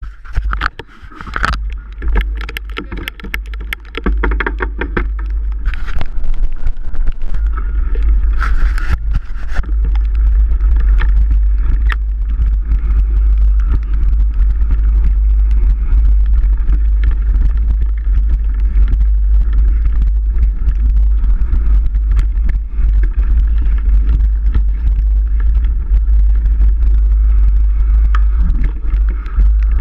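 Heavy wind rumble on the microphone of a camera riding on a mountain bike, steady after the first few seconds. Clicks and rattles come in the first several seconds.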